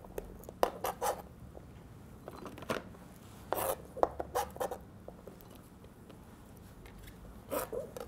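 Knife cutting and scraping strips of mortadella on a cutting board: irregular taps and short scrapes, several in quick clusters with quiet gaps between them.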